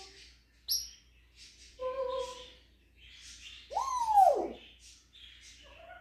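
African grey parrot calling and making mimicked noises: a short high whistle about a second in, a brief call at two seconds, then a loud swooping whistle that rises and falls steeply about four seconds in, with scratchy rasps between.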